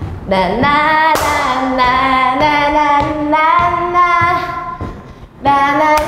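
A woman's voice singing a pop melody in long held notes, with light backing music; one long phrase, a short break about five seconds in, then the next phrase begins.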